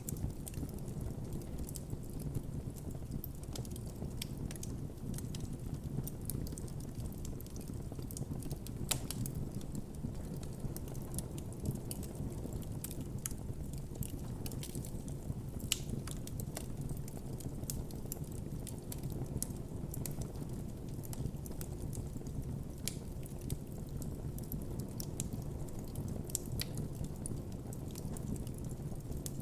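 Campfire burning: a steady low rush of flames with frequent, irregular sharp crackles and pops from the burning wood.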